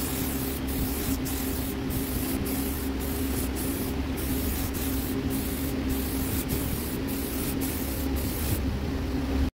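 Aerosol spray-paint can hissing as it sprays cherry red paint, in sweeping strokes with short breaks about twice a second. The spraying stops a little before the end.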